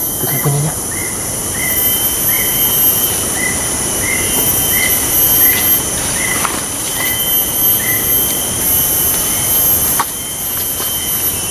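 Loud, steady high-pitched drone of forest insects, with a short chirp repeating about every two-thirds of a second until about eight seconds in.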